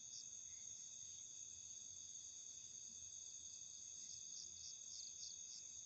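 Night insects, crickets, trilling faintly and steadily, with short runs of quick chirps at the start and again about four seconds in.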